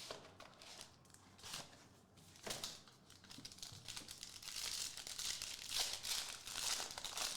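Plastic trading-card pack wrapping being crinkled and torn open by hand, with a few separate rustles at first and then denser, continuous crinkling in the second half.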